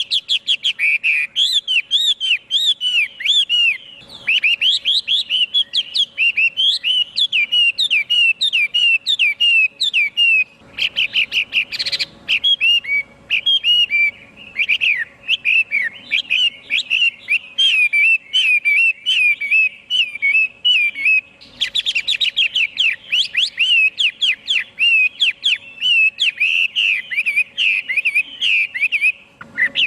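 Chinese hwamei singing: a long, fast run of loud, varied whistled notes that slide up and down, broken by short pauses about ten and twenty seconds in.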